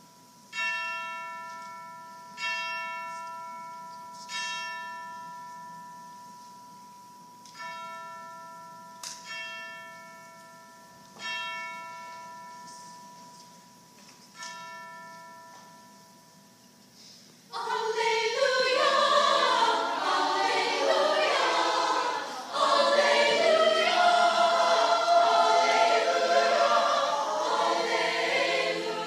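A bell struck seven times at slow, uneven intervals, each stroke ringing out and fading away. About seventeen seconds in, a choir bursts into loud singing, and it carries on to the end.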